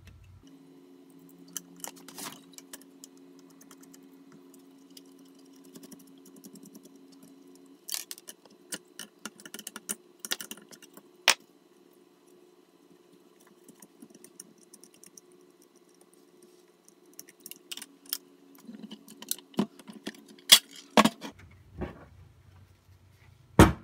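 Scattered small metal clicks and clinks as bolts are undone by hand and a sealed lead-acid battery is worked out of its metal case, coming in bunches with pauses between.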